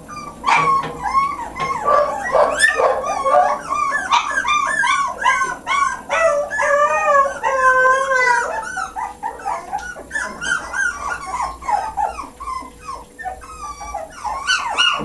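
Boxer puppy whining and yipping over and over: short cries that rise and fall in pitch, with a few longer drawn-out whines around the middle.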